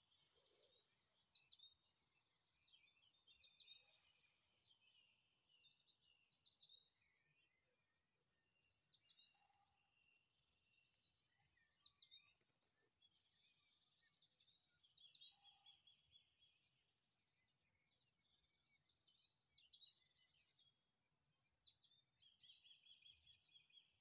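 Faint birdsong from several small woodland birds: short chirps and whistles throughout, with rapid trills of repeated notes now and then.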